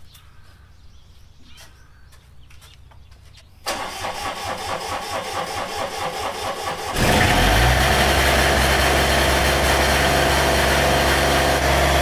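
Rice combine harvester's diesel engine being cranked by its starter for about three seconds, then catching about seven seconds in and running steadily and loudly.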